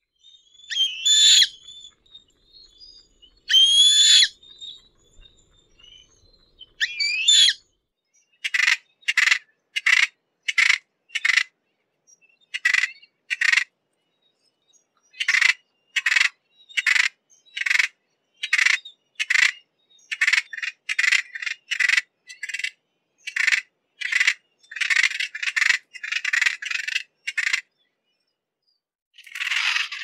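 Lesser noddy calling. There are three drawn-out calls with gliding pitch in the first seven seconds, then a long series of short, clipped calls, about two a second, in runs with brief pauses. A noisier burst starts just before the end.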